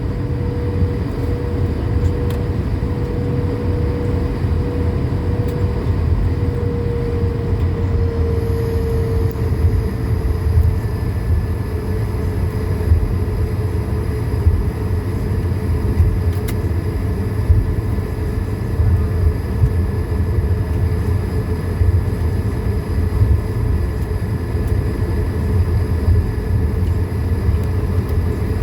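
Cabin sound of an Airbus A220-300 taxiing on its Pratt & Whitney PW1500G geared turbofans at taxi power: a steady low rumble under a constant engine whine. The whine shifts in pitch briefly around a quarter of the way in, and a higher whine joins about ten seconds in.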